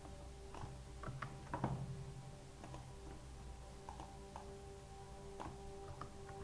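Scattered computer mouse clicks and keyboard taps, a cluster of sharper clicks between about one and two seconds in, over a steady faint hum of several held tones.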